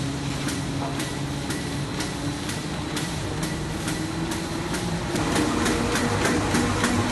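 Paper shopping-bag making machine running, with a steady hum and a regular mechanical clack about twice a second. It grows louder about five seconds in.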